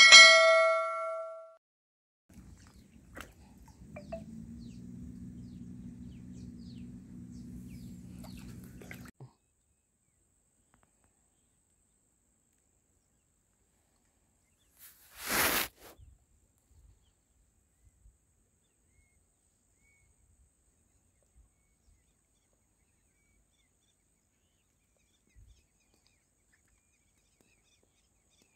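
Mouse-click sound effect and a bright bell ding from a subscribe-button animation, ringing out over about a second and a half. A faint low hum follows for several seconds, then a short hiss about fifteen seconds in, and very little after that.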